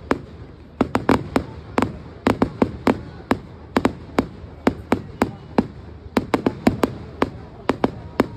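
Aerial firework shells bursting in a rapid, irregular string of sharp bangs, often several a second, some in quick clusters.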